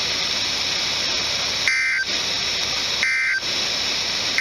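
NOAA Weather Radio static hiss, broken twice by a short two-tone digital data burst: the Emergency Alert System (SAME) end-of-message code, repeated a little over a second apart.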